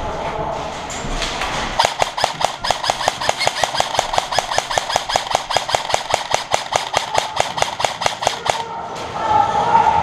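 Airsoft gun firing a long string of rapid, evenly spaced shots, about seven a second. The shots start about two seconds in and stop a little over a second before the end.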